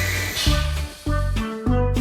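Background children's music with a steady bass line and bright melody notes.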